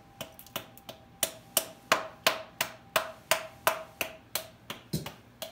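Evenly spaced sharp clicks, about three a second, each with a brief ringing tone.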